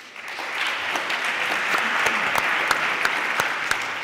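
Audience applauding, swelling up over the first half second and then holding steady.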